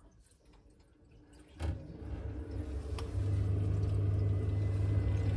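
Baxi Duotec combi boiler firing up on a hot-water demand: a click about a second and a half in, then a steady low hum of fan and burner that strengthens about three seconds in. The boiler is lighting for hot water, the sign that its no-hot-water fault is cured.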